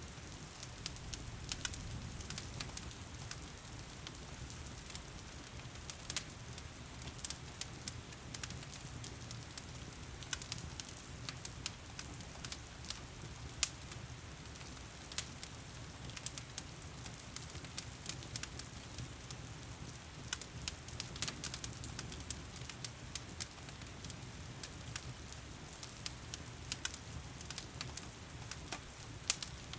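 Wood fire crackling and popping in a fireplace, with sharp irregular snaps scattered throughout, over a steady hiss of heavy rain.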